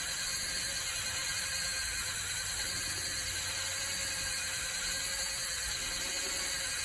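A small motor whining steadily with an even hiss, holding a faint, slightly wavering pitch.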